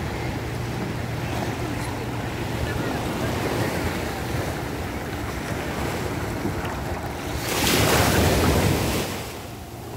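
Small sea waves lapping around the microphone at water level, with wind on the microphone and the steady low drone of a speedboat's engine. About seven and a half seconds in, a louder rush of water swells up and fades a second and a half later.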